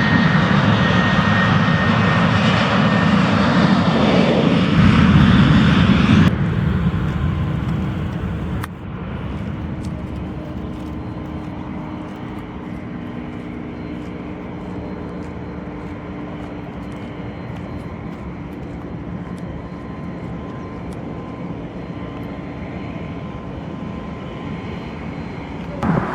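Boeing 737-700 BBJ jet engines, loud at first with a falling tone as the jet goes by, then cut off suddenly about six seconds in. After that comes a quieter, steady jet engine sound with a faint whine.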